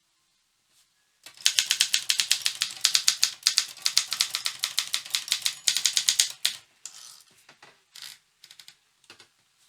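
Optima Elite-3 manual typewriter being typed on fast: a quick, even run of type-bar strikes for about five seconds. A few scattered clicks and rattles of the mechanism follow near the end.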